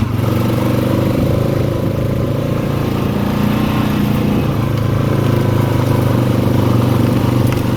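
Four-wheeler (ATV) engine running steadily as it is ridden along a dirt trail.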